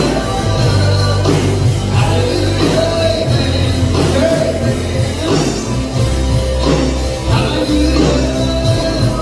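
Live band playing a rock-style gospel song, with a low bass line and regular drum hits.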